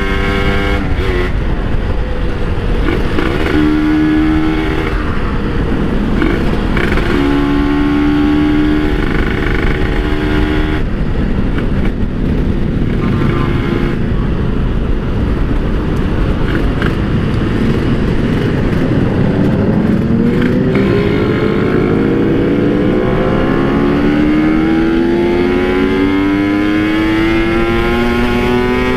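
Kawasaki Ninja RR's two-stroke single-cylinder engine running under way. Its note holds steady in short spells, then climbs steadily through the last third as the bike accelerates.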